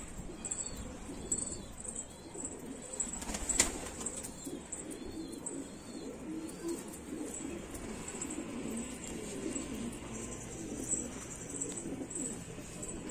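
A loft full of domestic pigeons cooing, with many overlapping low coos. Faint high chirps repeat through it, and there is one sharp knock about three and a half seconds in.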